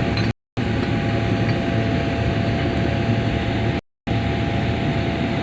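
An engine idling steadily with a low rumble and a constant hum; the sound cuts out completely twice for a split second, just after the start and about four seconds in.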